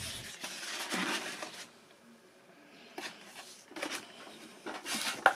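Hands handling the foam fuselage and hatch covers of a model aircraft: rustling and rubbing with a few light clicks, one sharp click about three seconds in.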